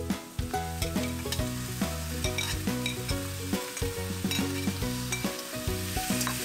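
Chopped tomatoes and scallions sizzling as they are stir-fried in an oiled wok, with a metal spatula scraping and clicking against the pan. Light background music plays underneath.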